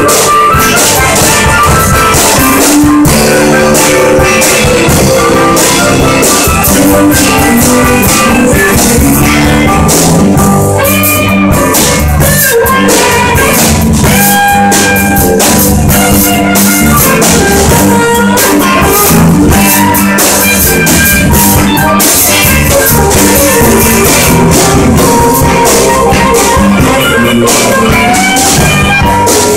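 Live blues band playing loud, with electric guitar, bass and drum kit, and a harmonica played into a handheld microphone.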